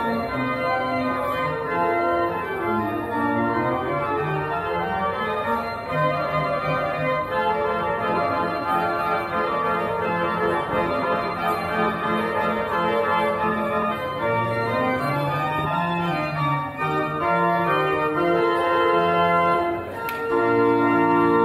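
Organ music playing: held chords under a moving melody. A louder, fuller chord comes in near the end.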